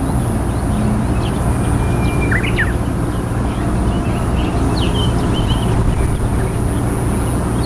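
Small birds giving a few short, high chirps over a steady low rumble.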